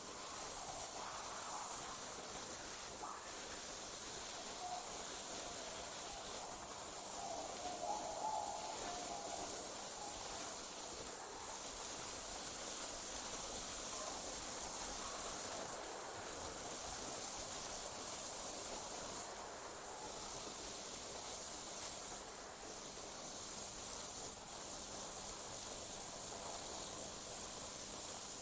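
Crickets trilling in a night ambience: a continuous high-pitched trill that breaks off briefly every few seconds.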